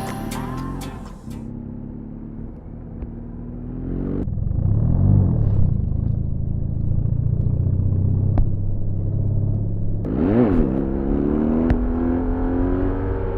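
BMW R1200GS boxer-twin engine and exhaust under way, getting louder about four seconds in as the revs climb. About ten seconds in the revs dip and climb again, with a couple of sharp pops from the exhaust.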